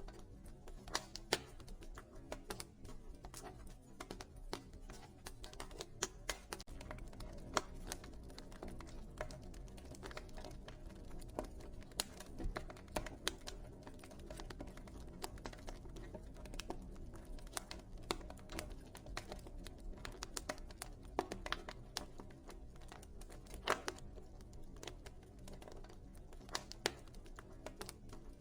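Wood fire burning in a fireplace, with irregular sharp crackles and pops from the burning logs over a low steady rush of flame.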